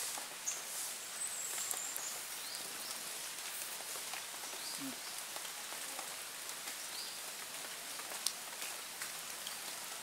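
Light, steady pattering and splashing on a catfish pond's water surface, with scattered small clicks. A few short, high chirps sound over it.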